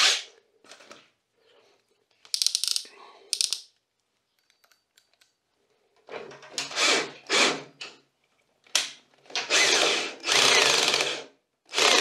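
Ridgid cordless drill driving screws through a solar panel's mounting bracket into the panel frame. It runs in short bursts, with a quiet gap around the middle, then longer runs near the end.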